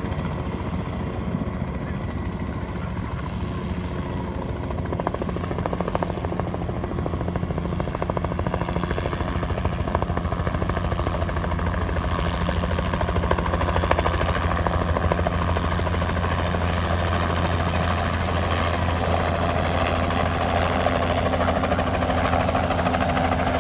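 Low-flying helicopter approaching, its rotor beat fast and steady, growing louder as it comes closer.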